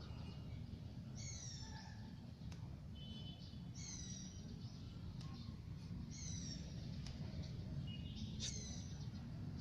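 High chirping calls, each falling in pitch, four times about every two and a half seconds, over a low steady hum.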